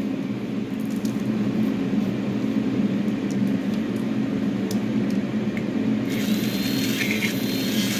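A steady low motor hum, with a few light clicks as a paint jar is handled; a brighter hiss comes in about six seconds in as a metal rod stirs the paint.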